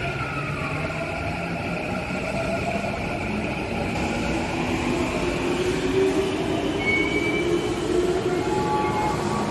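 Electric commuter train pulling into the platform and braking to a stop, with steady rolling noise and motor whine that shifts in pitch as it slows.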